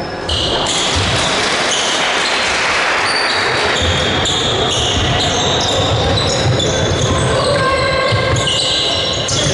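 Basketball game in play on a gym court: the ball bouncing, many short, high sneaker squeaks on the floor, and a steady din of crowd and player voices echoing in the hall.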